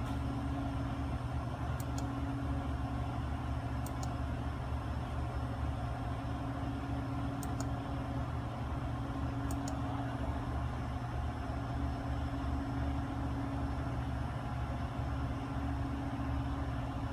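Steady low mechanical hum with a few faint, brief ticks.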